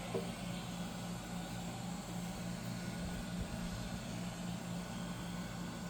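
Hot air gun running, its fan blowing steadily with a constant low hum, as it heats the tablet to soften the screen adhesive.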